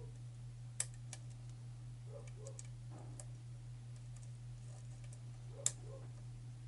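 Lock pick and tension wrench working the pins of a pin-tumbler lock: scattered small metallic clicks and ticks, with two sharper clicks about a second in and near the end, over a steady low hum.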